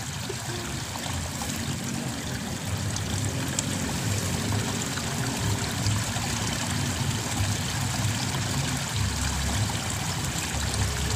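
Steady rush and trickle of water flowing along a small irrigation ditch.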